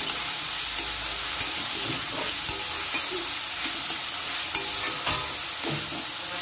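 Chopped onions, tomatoes and garlic sizzling in hot oil in a metal kadai as they are sautéed and stirred with a steel spoon. A few sharp clicks and scrapes come from the spoon against the pan.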